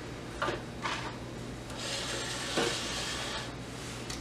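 Light knocks and rubbing as a portable butane camp stove is shifted across a granite countertop and metal kitchen tongs are picked up, with a soft hiss in the middle.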